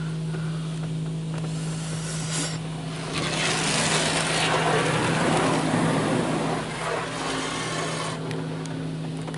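PDQ LaserWash 4000 touchless car wash spraying water over the car, heard from inside the cabin: a steady low hum underneath, with the spray swelling to a loud hiss about three seconds in and easing off near seven seconds.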